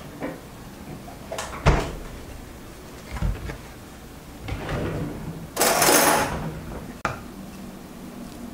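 Kitchen handling noises: a few sharp knocks and a dull thump, then a brief, louder scraping rustle about five and a half seconds in, and a last click.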